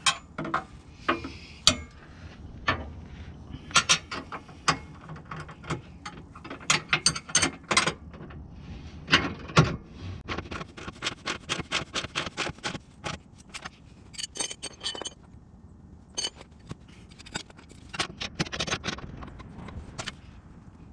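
Hand socket ratchet clicking in uneven bursts as the K-member brace bolts are run in and snugged up, at times about four clicks a second.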